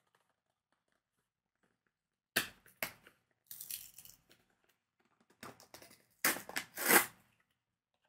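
Tightly sealed microphone packaging being torn open by hand in several rough rips, starting about two seconds in, the loudest near seven seconds.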